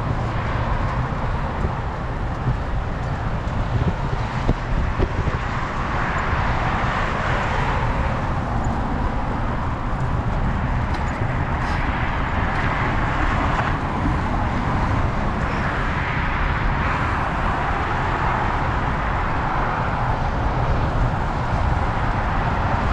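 Steady low wind rumble on a GoPro's microphone while riding a road bike. Over it, a rushing road and traffic noise swells and fades several times as vehicles pass.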